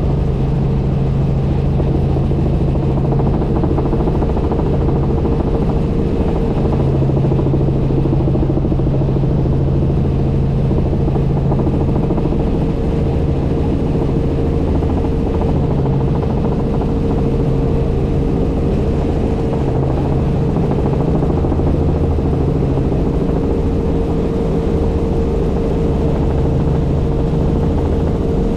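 Helicopter in flight: steady engine and rotor noise, a constant low drone with a steady higher hum over it.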